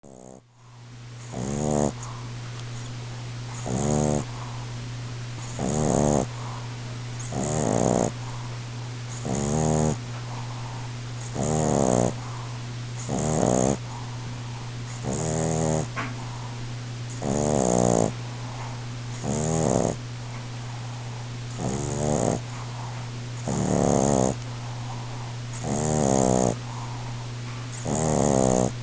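Boston Terrier snoring loudly in its sleep: a rattling snore about every two seconds, each breath with a hissing edge, over a steady low hum.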